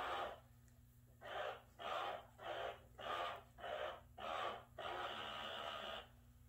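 Breathing close to the microphone, in short breaths about two a second, then one longer breath near the end.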